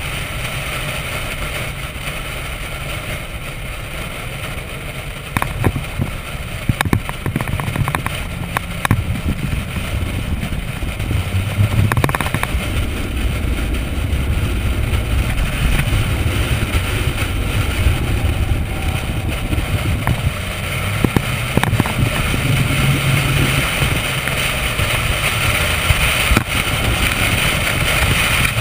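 Chevrolet Corvette's V8 engine running at a steady parade-lap pace, heard from a camera mounted outside the car, with wind and road noise. It gets a little louder about five seconds in, with a few sharp knocks in the middle.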